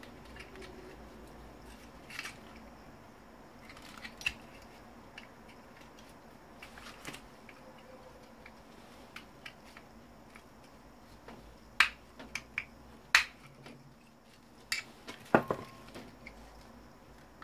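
Hand tools working on the parts of an old Samsung monitor during disassembly: scattered clicks and knocks of plastic and metal, sparse at first, then several sharp, louder clacks in the last third.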